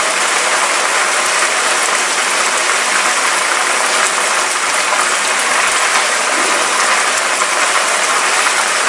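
Diced tomatoes and garlic frying in olive oil in a pan, a steady dense sizzle.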